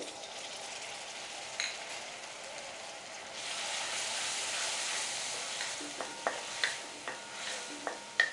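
Ginger garlic paste sizzling in hot oil with fried onions in a metal kadai as it is stirred with a wooden spoon. The sizzle swells about three seconds in, and near the end the spoon knocks against the pan several times.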